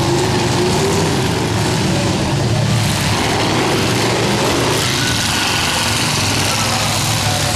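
Engines of several demolition derby cars running and revving loudly together as they drive around a dirt arena, a steady mechanical din with one engine's pitch rising briefly near the start.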